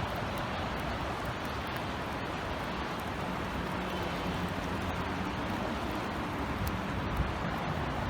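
Steady rain falling, with scattered drops ticking close by, over a faint low hum of distant city traffic.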